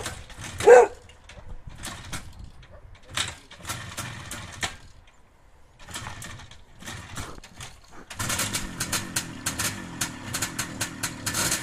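A dog barks once near the start, followed by scattered faint knocks. From about eight seconds a steady rhythmic sound with a regular tick, about three or four a second, sets in.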